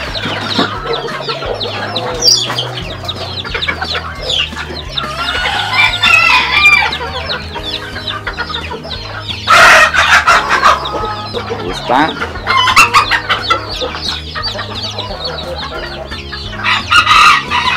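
Bantam chicks peeping continuously, with hens clucking, and a rooster crowing loudly about ten seconds in.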